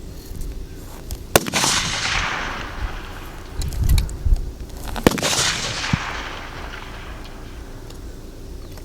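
Two .308 fullbore target rifle shots about three and a half seconds apart, each a sharp crack followed by a long rolling echo that fades over a second or two.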